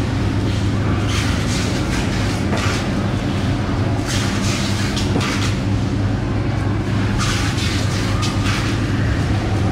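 Steady low mechanical hum with short scraping noises every second or so as a knife cuts through a blue marlin's skin and fins.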